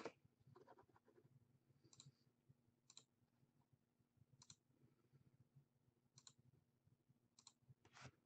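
Near silence broken by about six faint, short clicks from hockey trading cards being handled and flipped through.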